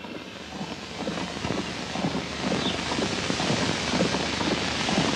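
A horse galloping on a dirt track, growing gradually louder as it approaches, under a steady rushing noise.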